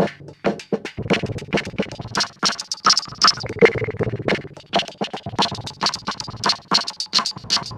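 Breakbeat drum loop processed through an Erica Synths AcidBox III effects unit: fast, dense drum hits, with the processed tone shifting in pitch about halfway through.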